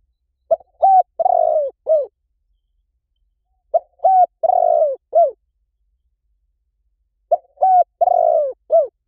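Spotted dove cooing: three identical phrases of four short coos, each phrase about a second and a half long and repeating about every three and a half seconds. A recorded call used as a lure to draw wild spotted doves in.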